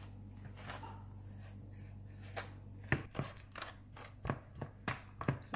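Fork mashing bananas in a bowl: irregular clicks and taps of the fork against the bowl, starting about three seconds in, over a steady low hum.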